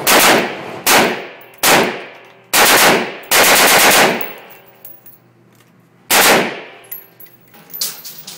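A fully automatic firearm firing bursts: short ones at the start, about a second in and just under two seconds in, two longer strings of rapid shots around three to four seconds in, and a last short burst about six seconds in. Each burst trails off in a brief echo.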